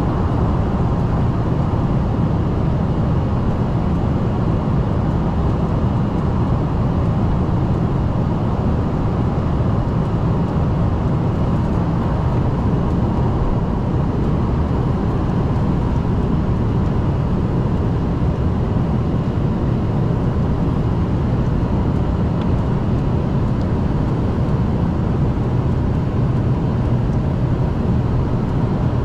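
Steady cabin noise inside an Embraer ERJ-145 regional jet: an even, mostly low rumble from its rear-mounted Rolls-Royce AE 3007 turbofans, with a faint steady whine over it.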